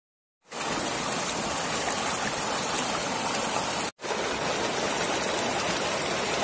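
Shallow, rocky mountain stream rushing and splashing over stones as a steady, even rush of water. It starts about half a second in, breaks off for an instant about four seconds in, and comes straight back.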